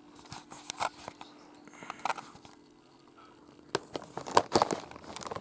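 Rubik's Cube layers being twisted by hand: quick runs of sharp plastic clicks in a few bursts, the loudest near the end.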